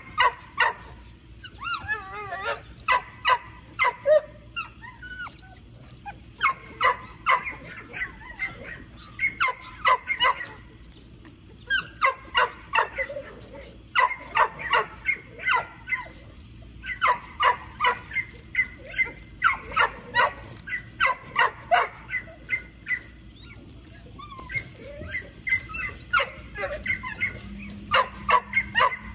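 A dog barking over and over in quick runs of short barks, two or three a second, with a wavering whine about two seconds in.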